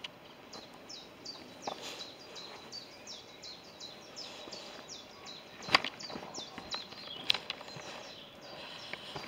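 Footsteps on a dirt and stone woodland path, with a few sharp, louder steps, the loudest about six seconds in. Behind them runs a steady series of high, quick chirps, about three a second.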